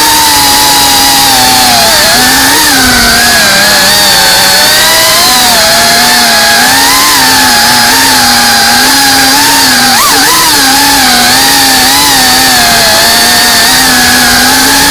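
FPV drone's electric motors and propellers whining, the pitch wavering up and down with the throttle, with a quick sharp blip about ten seconds in.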